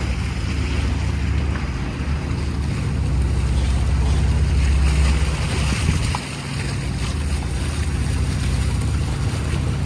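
A boat's engine running steadily with a low rumble, easing briefly about six seconds in, with wind rushing over the microphone.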